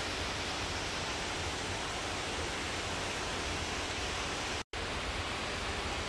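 Steady rushing noise with no distinct events, cut off for a split second about two-thirds of the way through.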